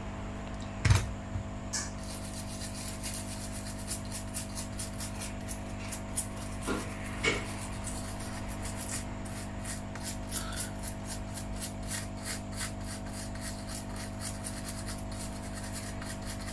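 Toothbrush scrubbing flux residue off freshly soldered circuit-board joints with alcohol: a quick, even run of short brushing strokes, about three or four a second. A sharp knock about a second in is the loudest moment.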